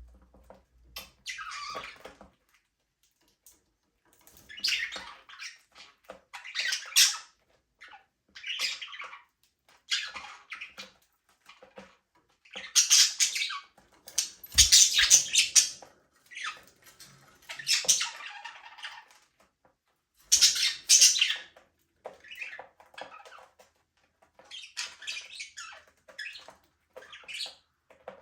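Budgerigars chirping and chattering in irregular high-pitched bursts with short pauses between them. A brief low thump sounds about halfway through.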